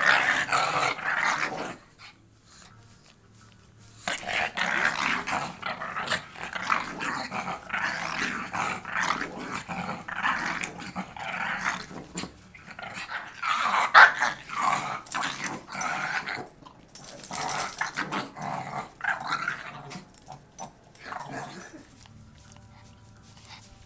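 Small Chihuahua-pug mix dog growling in ragged, continuous runs as she spins chasing her tail, with a pause about two seconds in and falling quiet near the end.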